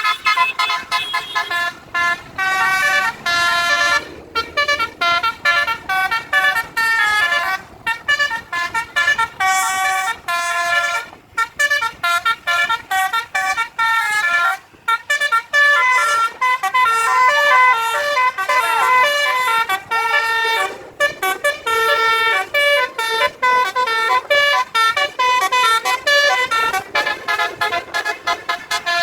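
Bus 'telolet' multi-tone horns playing fast melodic runs of short notes, one tune tumbling into the next with only brief breaks, two horn sets at times sounding together.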